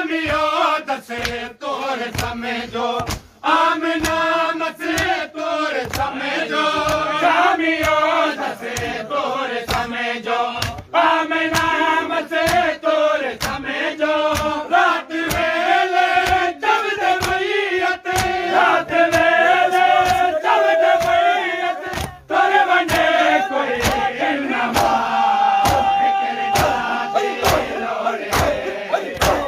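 Men's voices chanting a noha, a Shia lament, in unison, with sharp rhythmic slaps of matam (hands striking chests) about every three quarters of a second.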